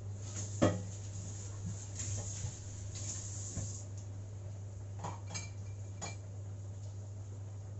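A bowl and dishes being handled at a kitchen sink: a sharp knock about half a second in, a short hiss, then two light clinks, one with a brief ring, over a steady low hum.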